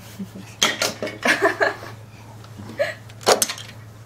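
Plastic Duplo bricks clattering as a toddler handles them and presses them onto a brick castle, in a few short bursts, mixed with the toddler's brief vocal sounds.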